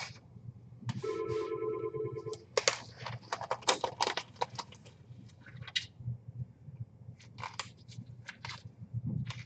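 A disposable glove being changed: a run of crinkling, rustling and snapping sounds, in two clusters. About a second in, a short fluttering ring-like tone lasts just over a second.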